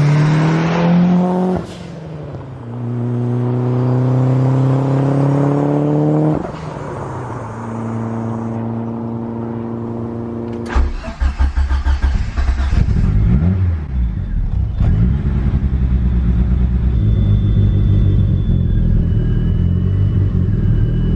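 Turbocharged 4G63 four-cylinder engine of a 500 hp Eagle Talon pulling hard through the gears: the pitch rises, drops at a shift about two seconds in, rises again, and drops at another shift near six seconds in. About halfway through it gives way to a lower, uneven rumble.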